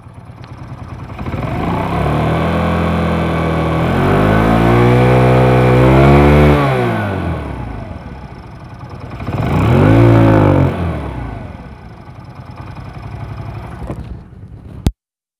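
Old Hero Splendor's single-cylinder four-stroke engine idling and blipped twice, rising and falling in pitch, then cut off suddenly near the end. It runs without the rattle it had before the oil pump was reworked, and the mechanic judges the sound very good for an old bike.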